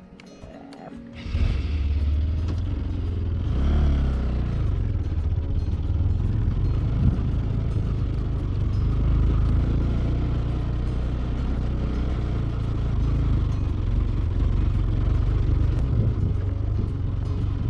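Motorcycle engine running steadily. It comes in suddenly about a second in and stays loud throughout.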